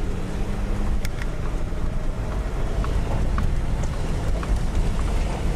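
A 4x4's engine and tyres heard from inside the cab, driving up a rough gravel mountain road: a steady low rumble with scattered small clicks and rattles.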